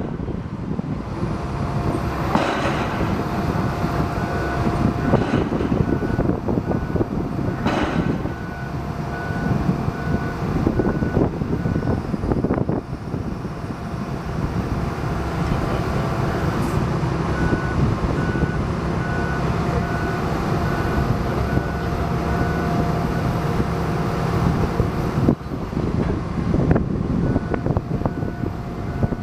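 Heavy machinery running steadily, with a reversing alarm beeping in spells of several seconds.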